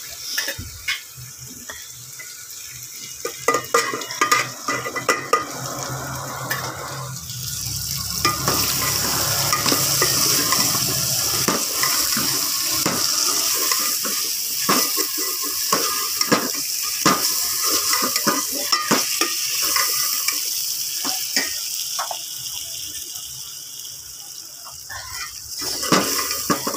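Taro root pieces frying in ghee with browned meat in a metal pot, sizzling as a metal spoon stirs them. The spoon scrapes and clinks against the pot again and again. The sizzle grows louder after several seconds and eases off near the end.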